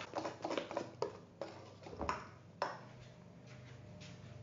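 A utensil scraping and clinking against a stainless steel mixing bowl while batter is stirred: a run of short knocks and scrapes over the first two and a half seconds or so, after which it goes quieter.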